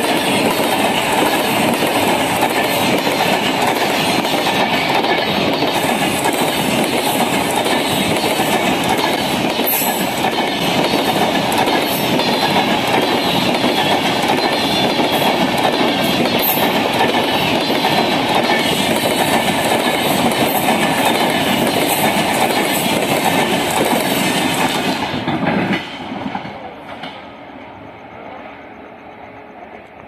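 LHB passenger coaches passing close at speed: a steady loud roar of wheels on rail with clickety-clack over the rail joints. Near the end the last coach goes by and the sound drops away sharply, leaving a fading rumble.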